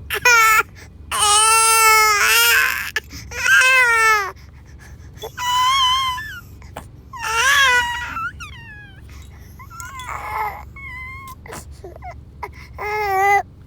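A baby's high-pitched, crying-like wails, about eight in a row with short gaps between, the pitch wavering and some calls gliding down at the end.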